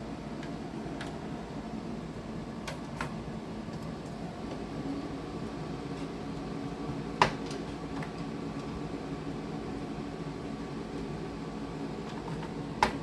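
Steady mechanical hum with occasional sharp clicks and taps of computer parts being handled while a motherboard is reseated, the loudest click about seven seconds in and another near the end.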